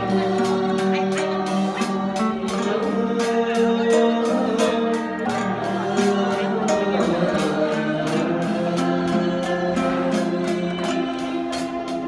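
A male voice singing into a microphone over a small Thai classical ensemble of struck and plucked strings, with held notes under the melody and a steady beat of light strikes about three times a second.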